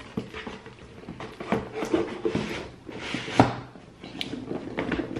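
Cardboard shoe boxes being handled: rustling with scattered light knocks and clicks, and one sharper knock about three and a half seconds in.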